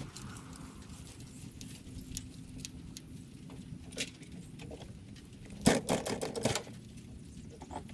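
A person climbing onto a compact tractor and settling at the controls: scattered light knocks and clicks, with a short burst of rattling clatter about six seconds in.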